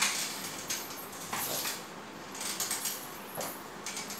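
Forearm crutches tapping and clinking on a tiled floor with each step, mixed with the jingle of anklet bells: a string of irregular metallic clicks and jingles.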